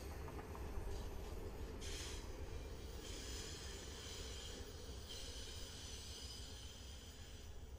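Amtrak passenger train of bi-level Superliner cars and a rear private car rolling past on a curve, a steady low rumble of wheels on rail. From about two seconds in a high-pitched wheel squeal joins it, fading out near the end.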